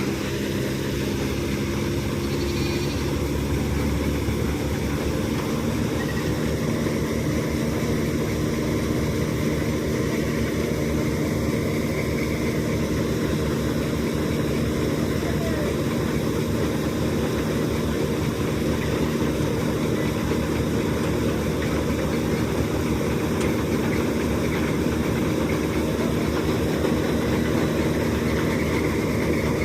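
Combine harvester engine running steadily at a constant speed, an even mechanical drone with no change in pitch.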